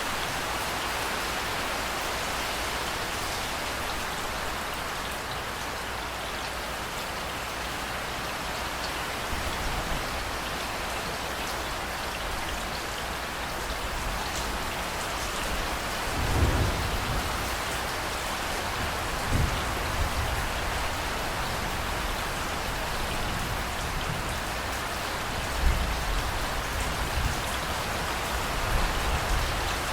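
Steady heavy rain falling on hard surfaces, with low rumbles of thunder coming and going, the loudest about a third of the way through and another sharp one a little past the middle.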